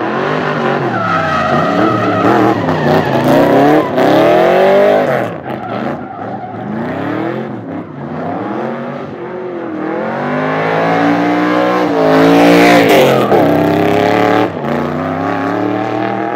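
Turbocharged, tuned Nissan 200SX engine revving hard, climbing and dropping in pitch again and again while the car is driven, with tyre squeal from skidding.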